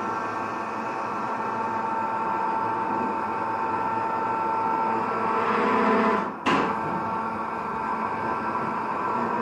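Electric crane hoist motor running with a steady whine while lifting a boat; it cuts out for a split second about six and a half seconds in, then carries on.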